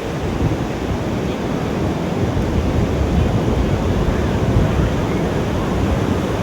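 Ocean surf washing on a sandy beach, a steady rush, with wind buffeting the microphone.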